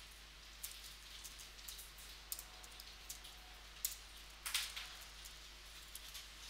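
Computer keyboard being typed on: faint, irregular key clicks, one louder burst about four and a half seconds in, over a steady low hum.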